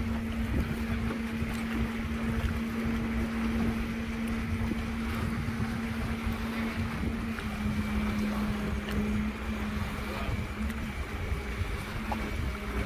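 An engine running steadily, its pitch dropping a little about halfway through and wavering near the end, over a low rumbling noise of wind and water.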